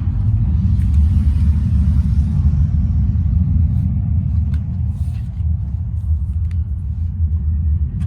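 Deep, steady bass rumble from a Bose CineMate subwoofer playing a film soundtrack, the energy almost all in the lowest notes.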